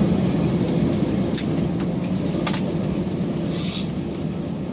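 Steady low cabin rumble of an Airbus A320-200 with its engines at idle, heard from inside the cabin as it rolls slowly into the stand. The rumble fades gradually as the engines wind down, with a couple of faint clicks and a short hiss near the end.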